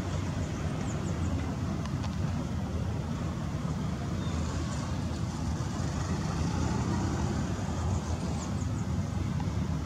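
Steady low rumble of engines from a Boeing 737-800 being pushed back by a tug, with a few faint high chirps about a second in and again near the end.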